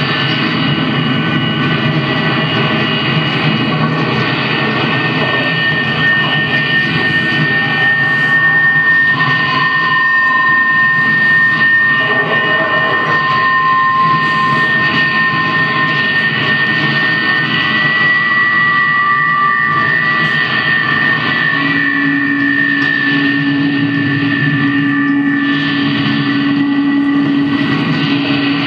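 Live electronic drone music from synthesizer and effects: several high tones held steady over a thick, loud rumbling noise bed, with a lower held tone joining after about twenty seconds.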